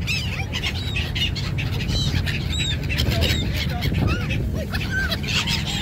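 A flock of black-headed gulls calling, many short arched cries from several birds overlapping, over a steady low rumble.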